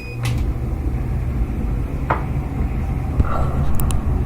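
Maytag Epic Z gas dryer starting up: a short beep as start is pressed, then the drum motor and blower running with a steady rumble and hum, with a few light clicks. The dryer runs but blows cold air.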